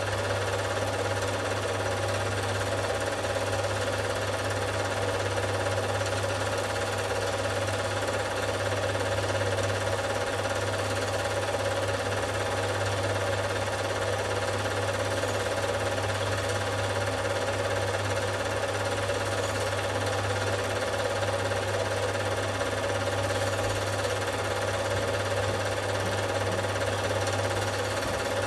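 Home-movie film projector running: a steady, unchanging mechanical whirr with a constant low hum.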